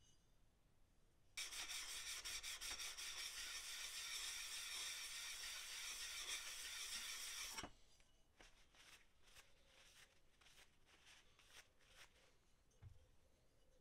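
Steel plane iron rubbed back and forth on an abrasive to flatten and regrind it, a steady scraping that starts about a second and a half in and stops after about six seconds. A few faint scrapes and clicks follow.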